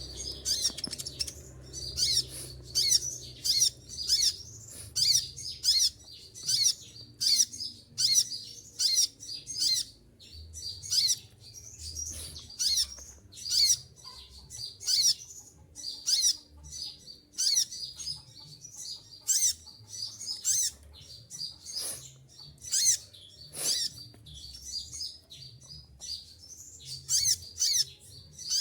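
Sunbird (konin) calling with short, shrill, high-pitched chirps in rapid bursts, about one or two a second. Two faint knocks come about two-thirds of the way through.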